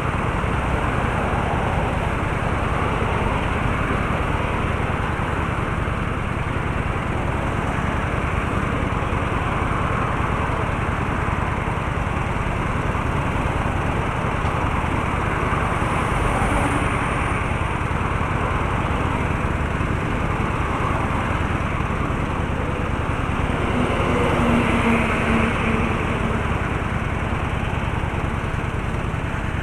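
Steady road traffic noise: engine and tyre noise with a constant low hum. About twenty-four seconds in, an engine tone grows louder for a couple of seconds.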